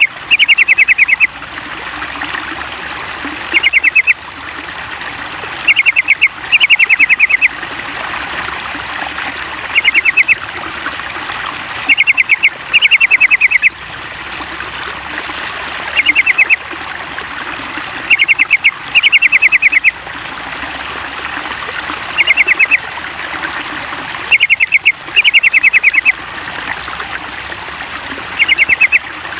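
Yellow-vented bulbul (trucukan) song: short bursts of rapid chattering notes, often in pairs, repeating every two to three seconds in an even pattern, over a steady trickle of running water. It is a lure recording played to get a trucukan to start singing.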